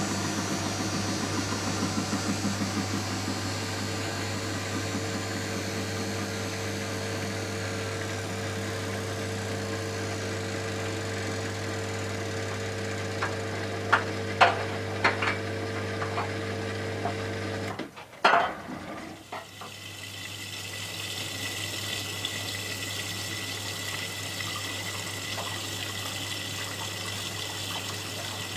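Miele Softtronic W 435 washing machine between stages of its rinse: a steady hum with a few sharp clicks, typical of the drain pump, cuts off suddenly about eighteen seconds in with a clunk. Water then starts running into the drum with a steady hiss and a thin high tone as the machine fills for the next rinse.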